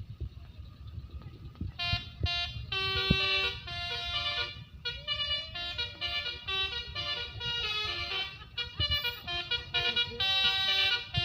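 Bus's telolet basuri musical air horn playing a melody of short stepped notes, starting about two seconds in, over a low traffic rumble.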